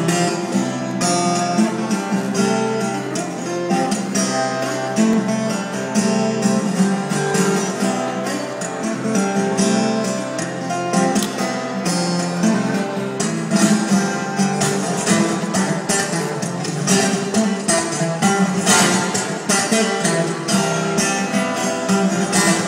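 Solo acoustic guitar fingerpicked in a live performance: a continuous melodic tune with many plucked notes over a bass line.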